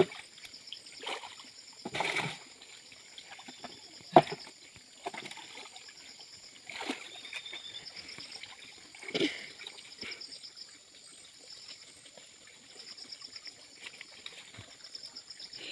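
Pond water splashing and sloshing as a person wades through it and sweeps landing nets, with irregular splashes every second or two; the loudest is a sharp slap about four seconds in.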